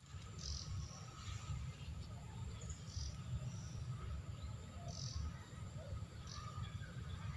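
Several short, high bird chirps spaced a second or two apart over a steady low rumble.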